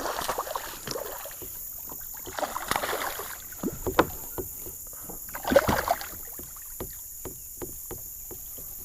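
Water splashing and scattered knocks and clicks against a kayak as a hooked largemouth bass is brought alongside and landed, in three brief bouts of splashing.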